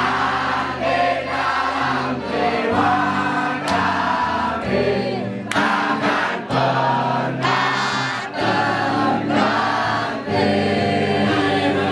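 A crowd of football supporters singing a supporters' song together, many voices at once, over steady musical accompaniment.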